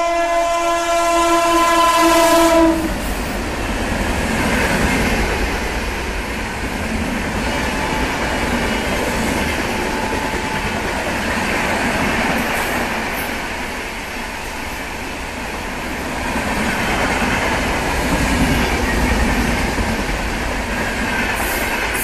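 A WDM3A ALCO diesel locomotive's horn sounds one long, single-note blast of about three seconds. The locomotive and its empty ICF coach rake then run past close by, a continuous noise of wheels on rails that swells and eases.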